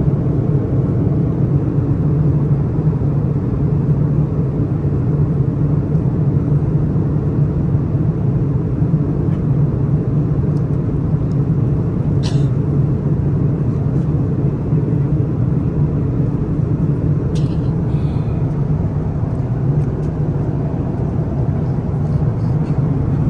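Steady low rumble of an airliner cabin in flight, the engine and airflow noise running unbroken. Two brief light clicks sound about halfway through and again about five seconds later.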